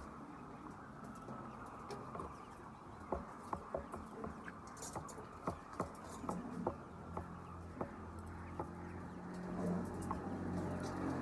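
Chickens in a poultry house, with sharp taps at irregular intervals and a low hum growing louder near the end.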